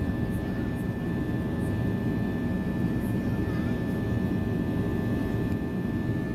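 Cabin noise of an Airbus A320-232 climbing after takeoff, heard beside the wing: its IAE V2500 turbofans at climb power give a steady, even rumble with a thin steady whine above it.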